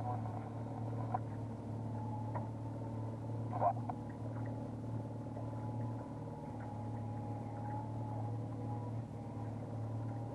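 A fishing boat's engine running steadily at trolling speed: a low, even drone with a faint higher whine over it, and a brief knock about three and a half seconds in.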